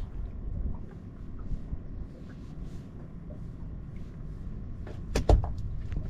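Fishing gear being handled in a small boat: a low steady rumble, then a quick clatter of two or three sharp knocks about five seconds in.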